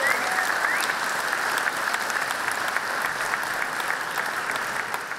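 Audience applauding in a hall, a dense steady clapping that begins to die down near the end.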